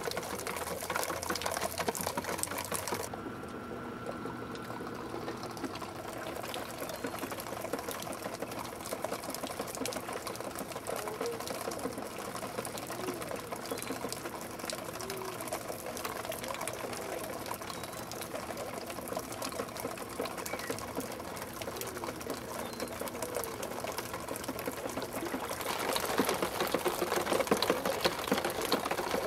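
Plastic bottles on a bottle sculpture's metal frame clattering and ticking rapidly without a break. The sound changes abruptly about three seconds in and grows louder near the end.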